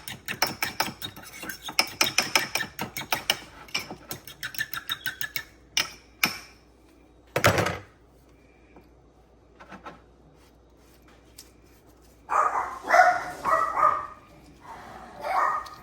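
A fork beating an egg with water in a bowl, a quick run of taps against the bowl for about five seconds, then a few knocks and one louder thump. A dog barks in short bursts near the end.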